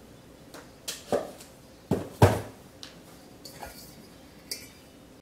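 A few light knocks and clinks of kitchen items being handled, spaced out over several seconds, the loudest a little over two seconds in.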